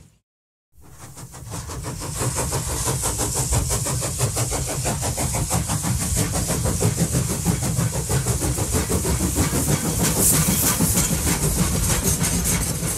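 Moving heritage train carriage heard from an open window: a steady running rumble of the wheels on the track. It fades in after a brief silence just after the start.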